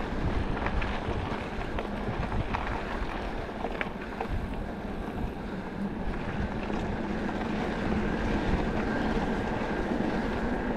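Riding noise from an enduro e-bike on a trail: wind buffeting the microphone over the rumble of the tyres, with scattered small clicks and knocks.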